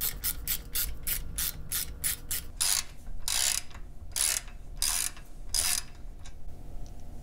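Socket ratchet wrench clicking as it backs off a nut holding an outboard's lower unit. First come short, even clicks about five a second, then five longer, louder ratcheting strokes about two to five seconds in.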